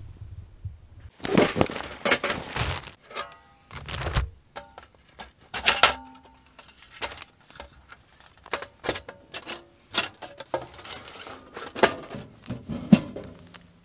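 Thin sheet-metal panels of a budget flat-pack wood stove clanking and rattling as they are handled, slotted together and set down, a string of separate knocks, some with a short metallic ring.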